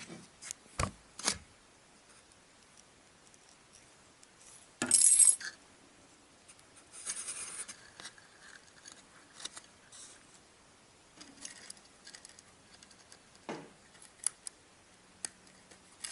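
Small handling sounds of fingers working rigging thread and small parts on a model-ship rigging jig: scattered clicks, taps and rustles, with one louder, harsh scrape about five seconds in.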